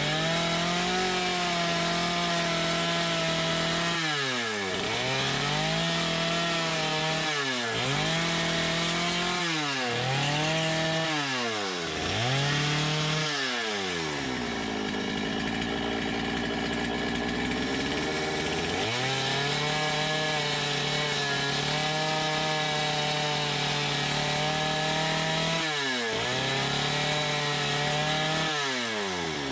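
Stihl gas chainsaw cutting into a block of scrap wood at high revs. The engine pitch drops away and climbs back about every two seconds as the throttle is let off and opened again between cuts, with a longer steady cut through the middle and another dip near the end.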